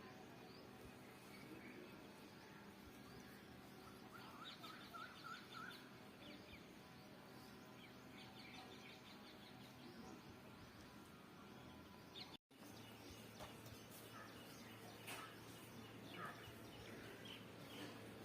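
Faint, quiet background with a pet parrot's soft, short chirps repeated in a quick run about four seconds in and again a few seconds later, and a few faint clicks in the second half. The sound cuts out completely for a moment just past the middle.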